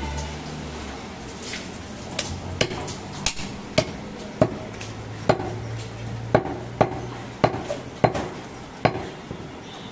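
A heavy cleaver chops through bone-in mutton onto a wooden stump chopping block. From a couple of seconds in come about ten sharp chops, roughly one every half second to second.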